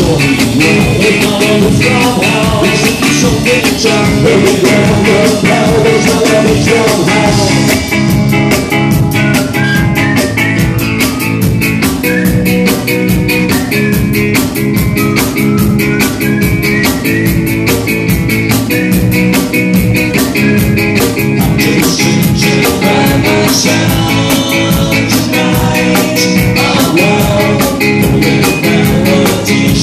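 Loud live rock band music, drums keeping a steady beat under a lead melody line, with no sung words.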